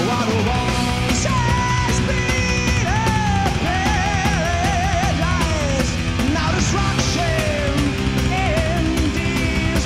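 Live heavy metal band playing loud and steady: distorted electric guitars, bass and drums, with a lead melody that bends and wavers in pitch over them.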